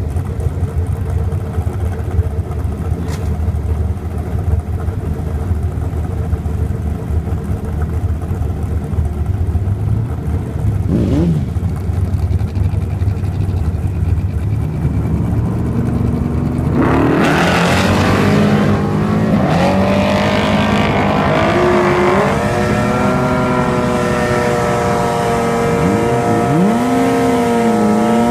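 Two big-block V8 drag cars, a 1972 Chevrolet Monte Carlo on nitrous and a 1969 Dodge Dart, idle at the starting line with a short rev about eleven seconds in. About two-thirds of the way through, both launch at full throttle and run down the strip. The engine note climbs and drops back at each gear change.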